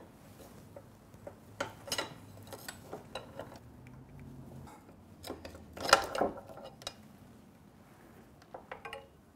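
Steel tire lever clinking and scraping against the rear shock's lower mount and the swing arm as the shock is pried out of its press-fit mount. Scattered light metallic knocks, the loudest about six seconds in.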